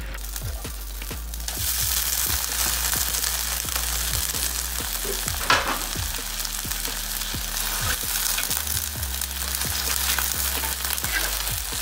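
Wild sweet leaves (rau ngót rừng) sizzling as they are stir-fried in lard in a hot black wok, with a metal spatula turning them. The sizzling hiss starts about a second and a half in, and the spatula clanks sharply against the wok about halfway through.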